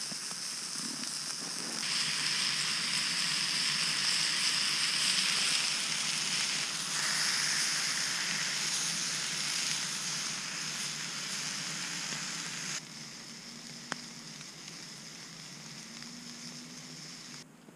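Steaks sizzling in a frying pan held over a campfire: a steady hiss. It drops abruptly quieter about two-thirds of the way in, with one sharp click a second later.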